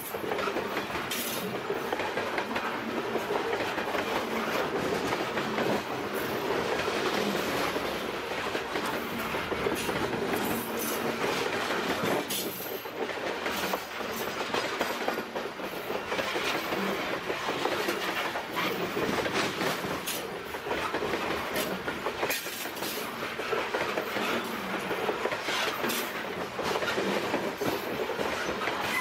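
Canadian Pacific freight cars rolling past close by at speed: a steady rumble of steel wheels on rail, with repeated clicks as the wheels cross the rail joints.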